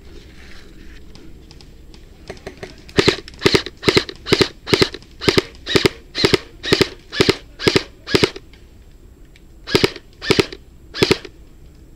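Airsoft rifle fired close to the microphone in single shots, about a dozen at roughly two a second, then a short pause and three more near the end.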